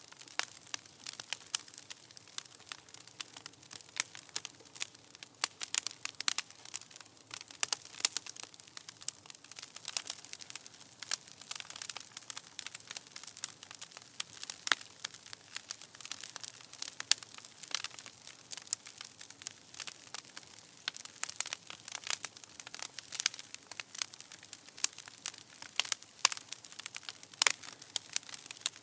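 Freshly started bonfire crackling: a dense, irregular run of sharp pops and snaps from the burning wood, over a faint hiss.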